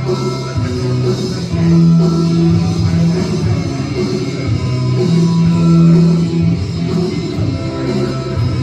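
Rock music with guitar and a steady bass line.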